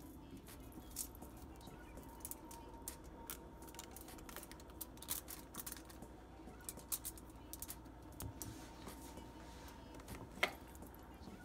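Aluminium foil crinkling and scattered small clicks as hands fold and press empanada dough shells on a foil-covered counter, with one sharper click near the end.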